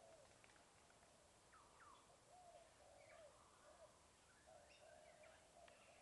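Faint birdsong: a string of short, repeated whistled notes with occasional higher rising chirps, merging into a continuous run of notes after about four and a half seconds.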